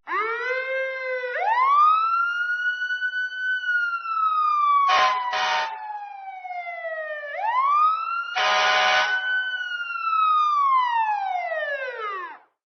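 Police siren sound effect: a wailing siren that rises quickly and then slowly falls, twice, with short blaring horn blasts about five seconds in and again about eight and a half seconds in; it cuts off abruptly near the end.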